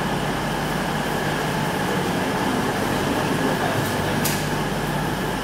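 Class 319 electric multiple unit standing at the platform with its onboard equipment running: a steady electrical hum made of a low tone and a few higher ones. A single sharp click about four seconds in.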